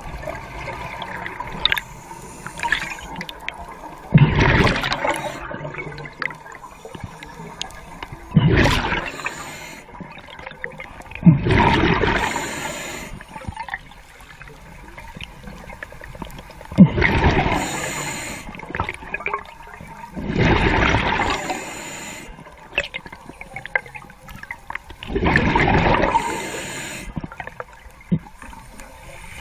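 A diver breathing through an underwater regulator: six rushing, gurgling bursts of exhaled bubbles, about one every four seconds, each lasting a second or two. Quieter hissing from the inhalations comes in between.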